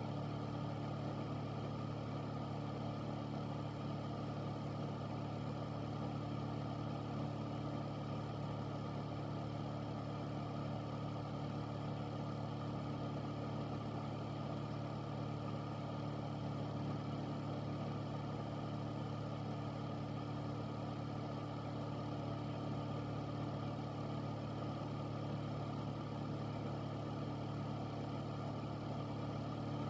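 Air filter fan running steadily: a constant low hum with an even rush of air over it.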